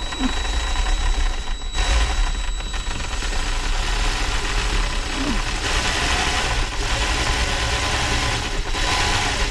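DeWalt 20V cordless drill running steadily with a step bit, slowly enlarging a hole in the plastic overhead console. It gets louder about two seconds in and stops at the end.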